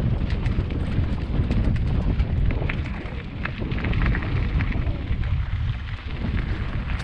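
Wind buffeting an action camera's microphone as a Kona Mahuna hardtail mountain bike rolls down a loose, rocky dirt road, with many small clicks and crackles from the tyres on gravel and the bike rattling over stones. The wind is heavier in the first half.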